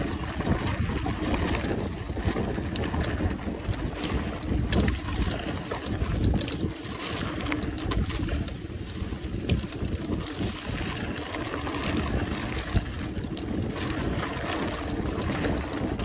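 Wind buffeting the microphone while riding a mountain bike, a dense low rushing with scattered clicks and rattles from the bike and tyres.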